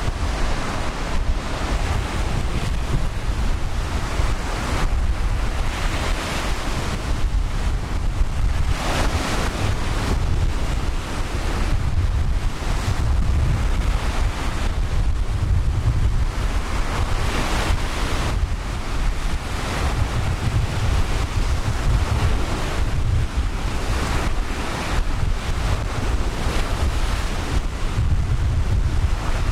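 Ocean surf washing onto the beach, swelling and falling every few seconds, with a steady low rumble of wind buffeting the microphone.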